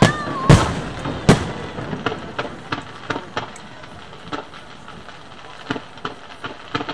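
Display fireworks bursting: three loud shell bangs in the first second and a half, then a scatter of smaller pops and crackles.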